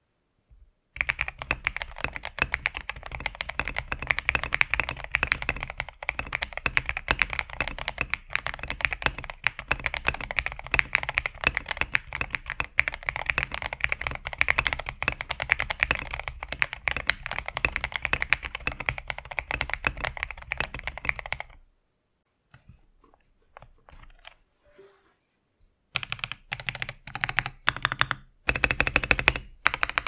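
Fast, continuous typing on a TM680 mechanical keyboard with lubed KTT Strawberry linear switches and a polycarbonate plate. The typing stops about twenty seconds in, leaving a few faint key taps, and resumes near the end.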